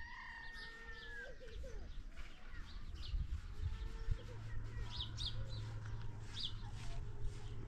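Small birds chirping in short, repeated high calls over a low rumble, with a steady low hum joining about halfway through.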